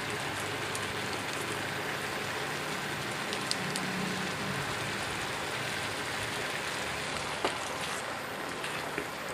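Diced mixed vegetables and tofu sizzling steadily in a frying pan as tomato sauce is squeezed in from a pouch. Near the end a spatula stirring gives a couple of light clicks against the pan.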